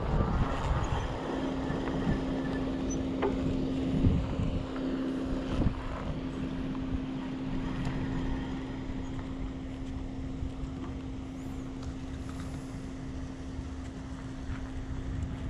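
Wind buffeting the microphone of a camera mounted on a moving bicycle, easing off as the bike slows, with a steady low hum from about a second in and a few short knocks in the first half.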